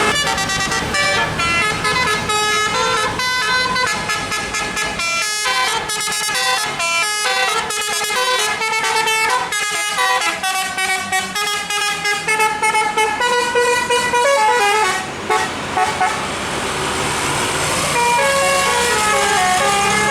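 Telolet multi-tone musical horn on a tour bus playing a fast melody: short notes that change pitch several times a second. The notes thin out briefly about fifteen seconds in, then the horn comes back loud.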